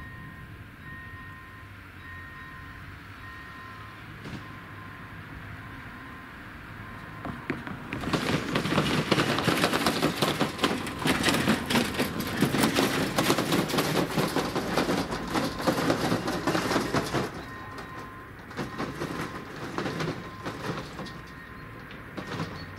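A level crossing's electronic warning bell rings a two-tone ding about once a second. From about eight seconds in, a passing train's running noise and rapid wheel clatter drown the bell for some nine seconds. Then the ringing is heard again.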